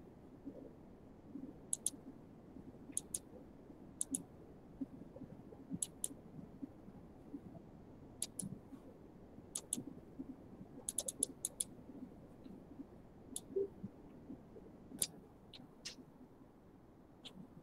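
Faint, small, sharp clicks at irregular intervals, many in quick pairs, with a brief flurry about two-thirds of the way through, over low room noise.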